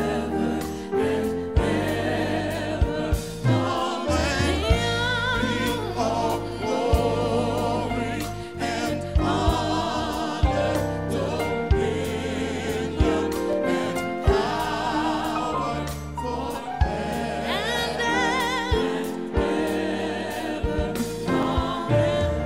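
Church praise team singing a gospel song with full, wavering voices over a band, with a steady drum beat and bass underneath.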